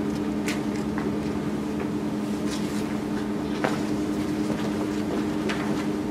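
Steady low room hum with two held tones, with a few faint, brief ticks scattered through it.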